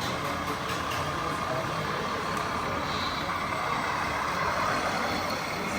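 Steady mechanical whirring of radio-controlled model trucks and excavators working, their small electric motors and gearboxes running.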